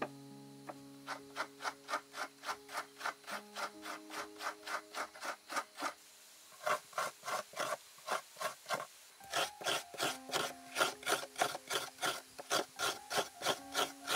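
Fresh coconut half being grated on the toothed metal blade of a hand coconut scraper: rhythmic rasping strokes, about two to three a second, with a short break near the middle, then louder, quicker strokes in the second half.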